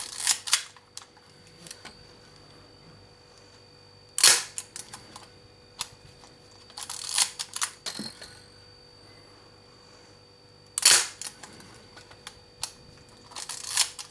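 Manual 35 mm SLR being cocked and fired twice while its shutter is checked through the speeds: quick ratcheting strokes of the advance lever tension the shutter, and a single sharp shutter-release clack follows about four seconds in and again about eleven seconds in. There are more winding clicks near the end.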